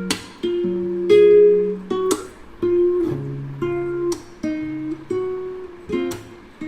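Background music: a gently plucked acoustic guitar or ukulele playing a slow melody, notes struck about every half second and left to ring.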